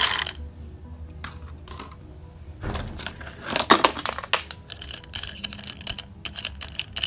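Dry fusilli pasta rattling out of a plastic cup into a small plastic toy pot of water at the very start, a rustle of handling about three seconds in, then a plastic slotted spoon stirring the pasta with quick light clicks against the pot.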